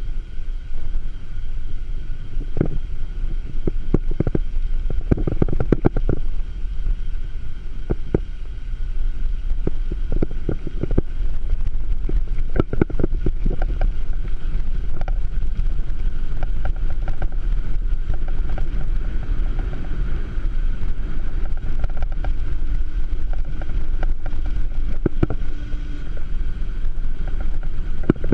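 Wind buffeting the microphone of a handlebar-mounted camera on a moving bicycle, over a steady low rumble from the tyres on asphalt. Irregular knocks and rattles come from the bike and its mount over bumps in the road.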